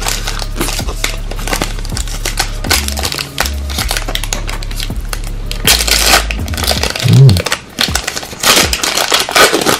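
Foil wrapper of a basketball trading-card pack being torn open by hand, crinkling and crackling in many short rustles. Background music with a low bass line plays underneath for most of it.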